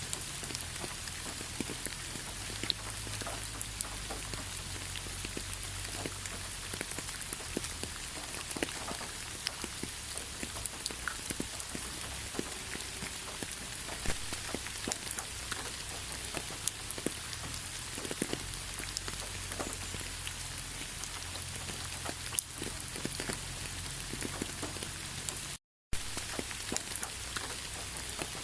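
Steady rain falling, with many separate drop hits ticking through a constant hiss and a low rumble underneath. The sound drops out completely for a split second near the end.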